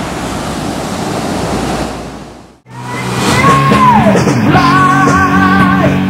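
Steady rush of surf on a beach, fading out about two and a half seconds in. Then louder music with a singing voice starts and runs on.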